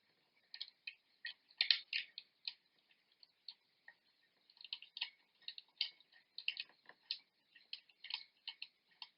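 Faint, irregular light clicks and taps of a metal lamp socket base and its cardboard insulator being handled and fitted onto the lamp, several clicks a second in small clusters.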